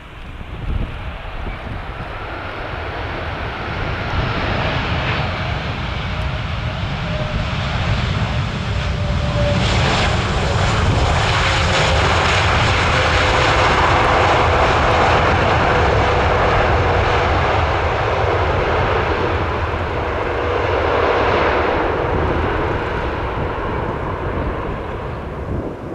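Airbus A340-300's four CFM56 jet engines running loud during the landing rollout just after touchdown. The roar builds over the first few seconds, stays loud through the middle, and carries a thin whine that slides slowly lower.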